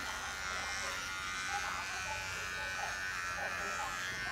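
Electric hair clipper buzzing steadily as it shaves hair close to the scalp.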